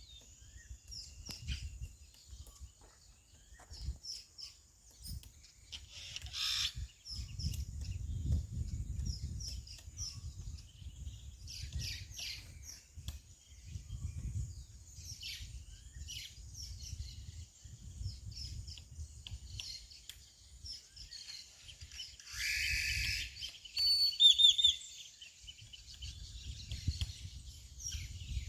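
Lineated woodpecker and other birds calling, with short chirps repeating throughout and a louder, harsher call about six seconds in and again near the end, over gusts of wind rumbling on the microphone.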